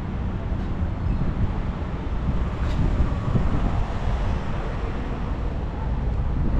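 Car on the move, heard from inside: steady road and engine rumble with some wind noise.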